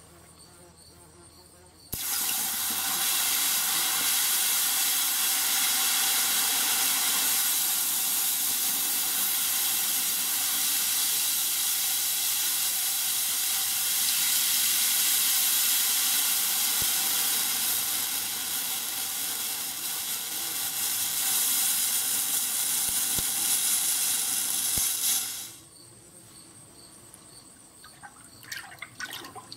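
Red-hot forged steel flint striker quenched in water to harden it: a loud, steady hiss of boiling water starts about two seconds in and cuts off sharply a few seconds before the end. Then water sloshes as the piece is stirred in the tub.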